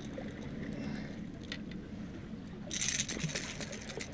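Handling a freshly landed small barracuda on the rocks: a few faint clicks, then a brief rustling scrape about three seconds in as the hand grabs the fish and lure, over a steady low wash of wind and sea.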